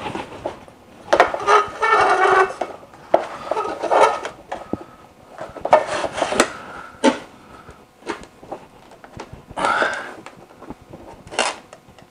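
Plastic ceiling-light cover being pushed and worked into its fixture: irregular clicks, knocks and scraping of plastic against metal.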